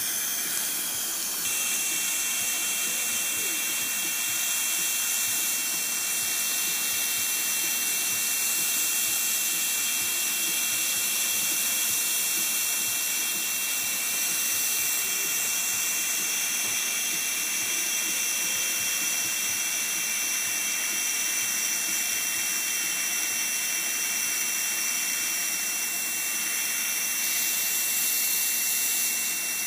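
A 940 nm diode laser's steady high-pitched emission tone while it fires, starting about a second and a half in and holding unbroken, over a steady hiss of dental suction.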